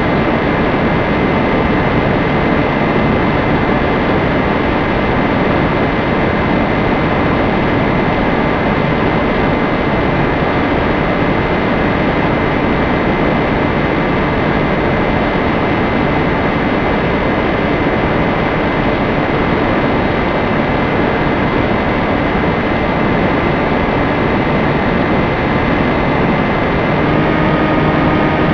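Steady wind rush and motor drone heard from a camera aboard a small aircraft in flight, with a faint steady whine over it that shifts in pitch a little before the end as the throttle changes.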